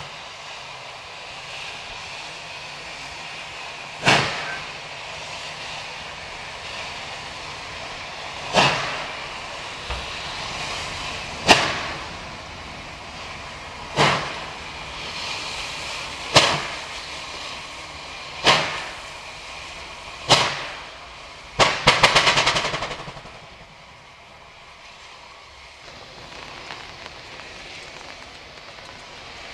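Steam locomotive 3801, a two-cylinder C38-class Pacific, blasting slow, loud, sharp exhaust beats about two seconds apart over a steady hiss of steam as it labours up a grade. About three quarters of the way through, the beats run together in a quick flurry as the driving wheels slip on a rail made greasy by crushed wet grass that the sanders, working tender first, cannot cope with.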